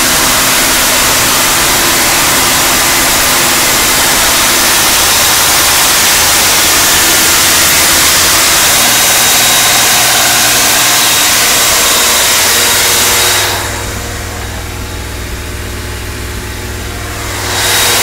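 Freshly installed Blue Print small-block Chevy V8 crate engine running at a steady fast idle, held at around 2000–2500 rpm to break in the new camshaft. The sound drops and turns duller for a few seconds near the end, then comes back up.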